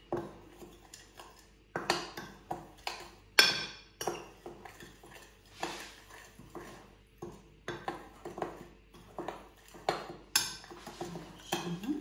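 A spoon clinking and scraping against a mixing bowl while stirring dry pancake ingredients (flour, baking powder, sugar, salt): irregular knocks and clinks, the loudest about three and a half seconds in.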